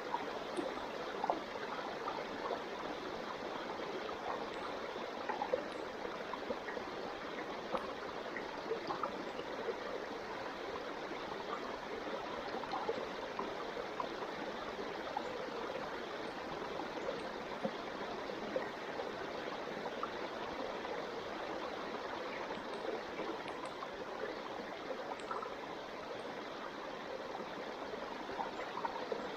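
Steady rush of running water, like a small stream, with many faint scattered clicks over it.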